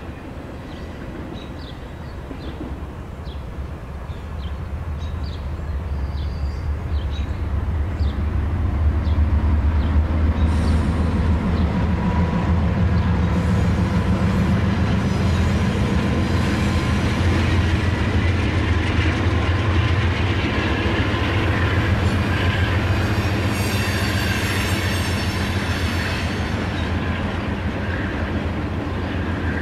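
N scale model grain train running past close by: a steady low motor hum with wheels clicking on the track, growing louder over the first several seconds as the train draws near, then holding steady. A high metallic wheel squeal comes in twice in the middle stretch.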